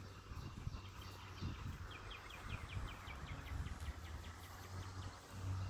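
A rapid trill of short high chirps, about eight a second, starting about two seconds in and fading out over a couple of seconds, over a low outdoor rumble.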